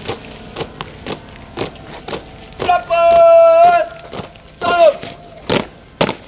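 Sharp strikes keeping march time, about two a second, with a long drawn-out shouted drill command about three seconds in and a shorter one that drops in pitch near five seconds.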